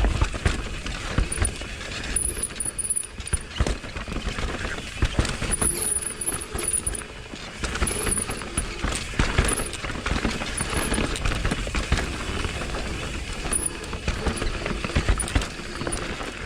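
Mountain bike rolling downhill on a dirt singletrack trail: steady tyre noise with frequent knocks and rattles from the bike as it jolts over bumps.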